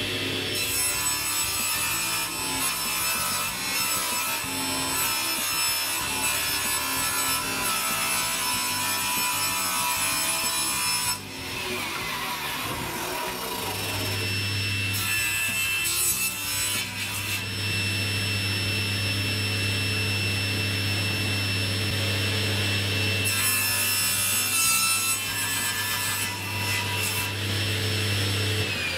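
Table saw running with a steady motor whine while its blade rips long wooden boards, with one long cut through the first eleven seconds and another near the end. The motor sound drops away briefly about eleven seconds in and starts to wind down at the very end.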